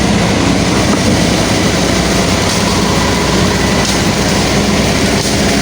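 Hydraulic excavator's diesel engine running steadily under load, a loud continuous mechanical drone.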